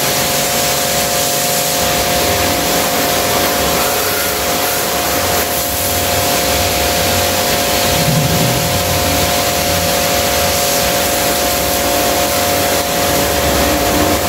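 Inc-co 1500-watt electric pressure washer running with its spray gun open: a loud, steady hiss of the water jet over a steady motor tone.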